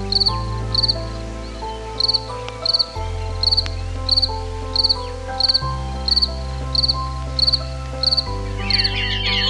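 An insect chirping steadily, short pulsed chirps about twice a second, over background music with held chords. A run of higher, warbling chirps comes in near the end.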